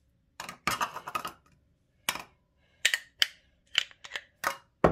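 About a dozen short, irregular clicks and scrapes of a tub of coconut oil being opened and solid oil being scraped out with a utensil, with a heavier knock at the very end.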